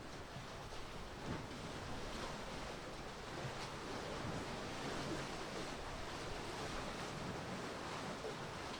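Steady wash of sea waves, with wind buffeting the microphone.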